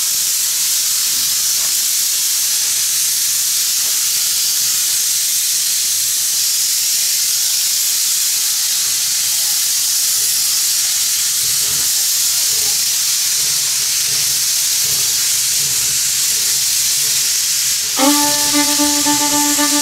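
Steady hiss of steam blowing from the open cylinder cocks of steam locomotive No. 331. Music starts near the end.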